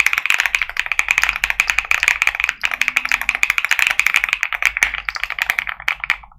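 Fast typing on a Keychron Q5 Max mechanical keyboard with MMD Cream V4 linear switches, a dense stream of keystrokes described as creamy and thocky. The keystrokes thin out and stop just before the end.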